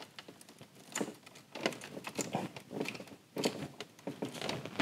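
Plastic wiring harness, corrugated loom and connectors being handled and tucked into place by hand: scattered light clicks and rustles.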